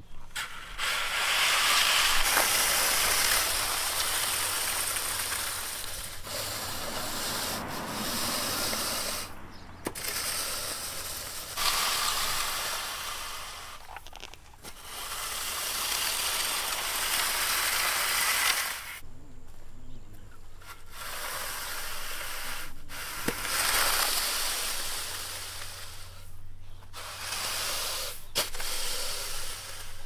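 Wooden rake dragged through unhulled paddy rice spread on woven straw mats, turning the grain for sun-drying: a dry rustling scrape in long strokes of a few seconds with short pauses between.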